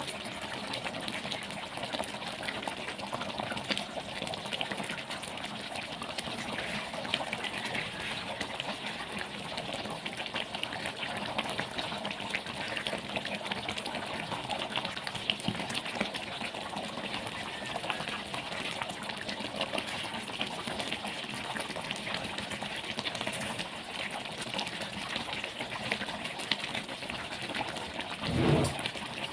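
Thick curry sauce bubbling steadily at a simmer in a stainless steel pan, a dense run of small pops, with a louder thump near the end.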